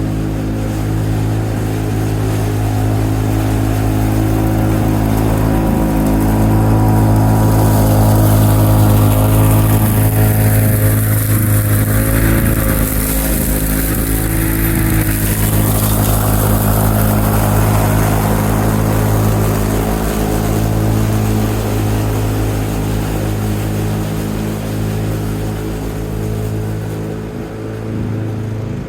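1987 Lawn-Boy 8073B push mower's two-stroke engine running at a steady speed, with a rushing noise higher up that swells and fades around the middle. The engine seems to run fine, though it is hard to start.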